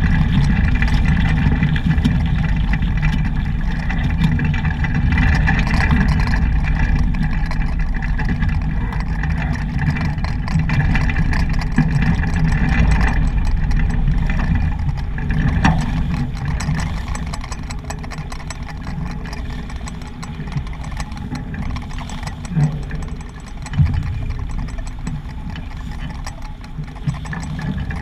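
Wind rumbling on the microphone and water rushing along a sailboat's hull under sail, easing a little in the second half, with a couple of short thumps near the end.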